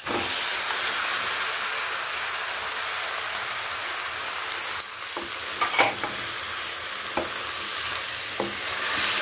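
Raw chicken pieces sizzling as they land in a hot pan of fried onion-and-tomato masala, the hiss starting abruptly and staying steady. A few clicks of a spatula against the pan in the second half as the chicken is stirred into the masala.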